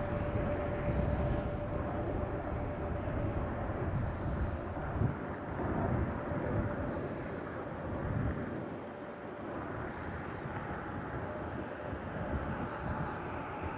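Jet airliner engines running: a continuous rumble and rush, with a faint steady whine in the first few seconds that then fades.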